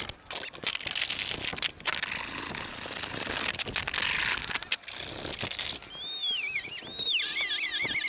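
Small hand saw cutting through a molded plastic mower shell in uneven back-and-forth rasping strokes, stopping about five and a half seconds in. Near the end a series of high, repeated chirps follows.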